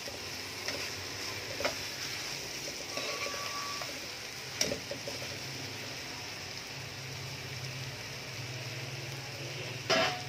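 A spoon stirring a thick chicken and bitter gourd curry in a steel karahi, with a few scrapes and knocks against the pan and the loudest knock near the end. A low steady hum runs underneath.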